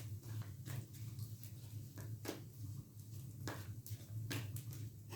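Wood fire crackling: sharp, irregular pops over a steady low hum.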